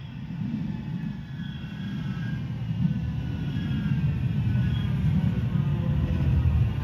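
Manchester Metrolink M5000 tram approaching the stop. A low rumble grows steadily louder, with a faint whine above it.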